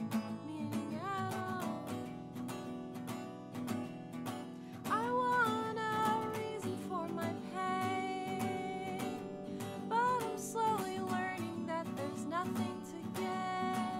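A song: strummed acoustic guitar with a singing voice, sung phrases coming in about a second in, around five seconds and again around ten seconds.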